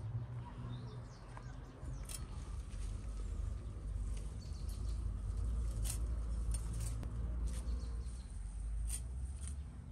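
Leafy garden herbs being picked by hand: leaves rustling and stems snapping in a scatter of sharp clicks, over a low steady rumble.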